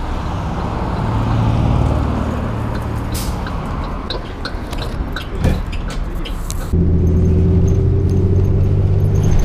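City bus pulling up to a stop over passing traffic, with a short hiss about three seconds in and a thump a little later. After a sudden cut about two-thirds through comes the steady low drone of the bus's engine, heard from inside while riding.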